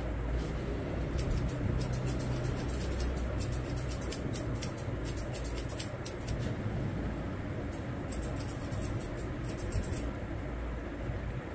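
Barber's scissors snipping beard hair in quick runs of crisp clicks, pausing for a couple of seconds about six seconds in, over a steady low background rumble.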